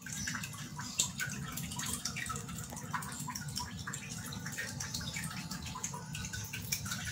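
Steady low room hum with many scattered small clicks and ticks throughout.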